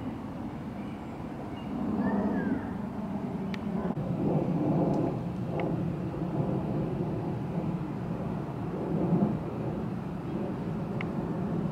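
Low rumble of street traffic, a vehicle engine running close by, swelling about two seconds in and holding steady. A brief high squeak and a few faint clicks sit on top.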